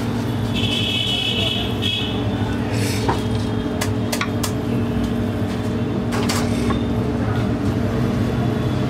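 Steady low hum of idling engines in road traffic, with a brief high-pitched tone about half a second in and a few sharp clicks in the middle.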